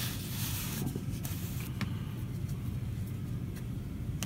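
Steady low hum in the room, with a soft slide and a few faint taps of trading cards being set down on a tabletop in the first couple of seconds.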